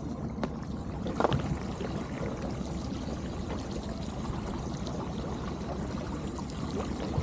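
Small boat's motor running steadily with water rushing along the hull, and a single sharp knock about a second in.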